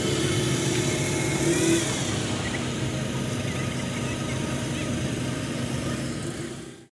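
Petrol-engine inflator fan running steadily, blowing air into a hot air balloon envelope on the ground. The sound cuts off suddenly near the end.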